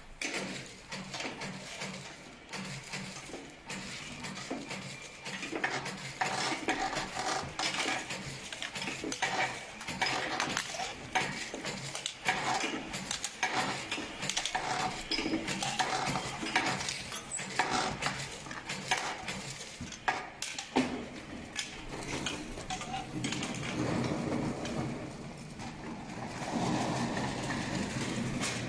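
Automatic sachet dispensing machine running: a continuous run of sharp mechanical clicks and metallic clatter as it cuts sachets off the roll and feeds them onto jars passing on a conveyor, over a steady low hum.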